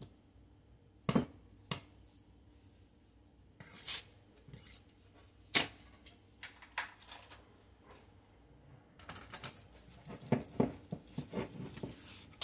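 Kitchen utensils knocking and clinking on dishes: a few separate knocks, then a quick run of clicks and clatter in the last few seconds.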